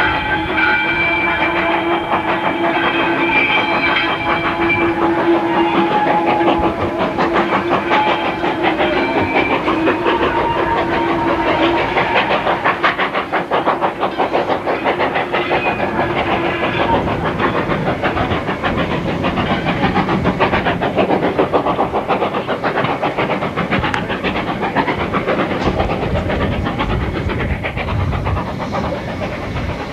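Steam locomotive hauling vintage coaches away, working with a rapid run of exhaust beats and rail-and-coach rattle. It grows fainter as it recedes. Steady held tones sound over the first dozen seconds, then stop.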